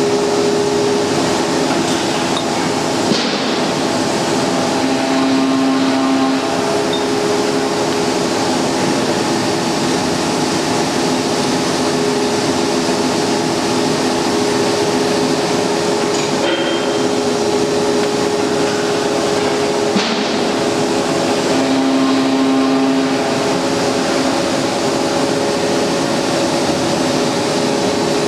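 Tapping machine running steadily as it cuts internal threads into a steel rebar coupler: a constant mechanical hum made of several steady tones. A few faint clicks stand out, and a stronger tone swells briefly twice, as the machine repeats its cycle.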